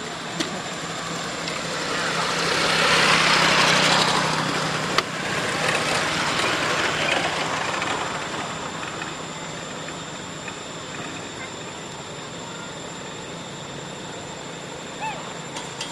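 A motor vehicle passing by: a noise that swells over a couple of seconds, peaks, and fades away by about eight seconds in, with a low engine hum beneath it. A single sharp click comes about five seconds in.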